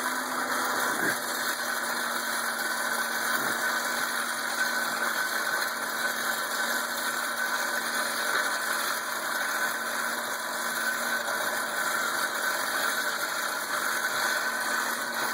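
Hand-cranked forge blower whirring steadily as it is cranked to feed air to the fire, with a steady whine and two light knocks, one about a second in and one a few seconds in.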